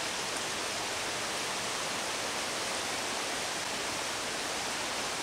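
Small woodland trout stream running over riffles: a steady, even rush of water.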